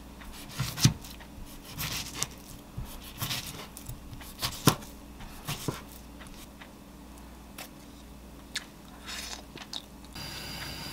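A chef's knife slices through a roasted sweet potato and sausages on a wooden cutting board, the blade knocking the board in irregular taps. The loudest knock comes a little under five seconds in. A steady hiss starts just before the end.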